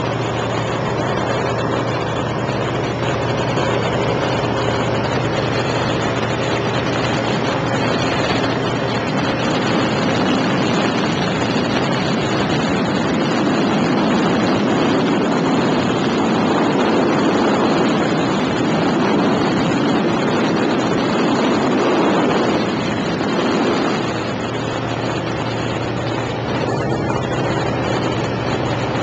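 Waco biplane's radial engine droning steadily in cruise, with heavy wind rush through the open cockpit. The sound swells somewhat through the middle, then eases a little about two-thirds of the way in.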